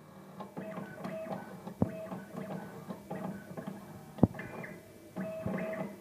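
Komax 48R automatic coaxial cable stripping machine running a multi-step stripping cycle. Its motors whir in short runs that start and stop, with sharp clicks about two seconds in, a little after four seconds, and near the end.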